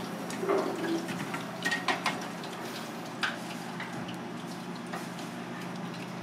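Steady sizzle of hot frying oil over a low steady hum, with a few light clicks and clinks of metal about half a second, two seconds and three seconds in.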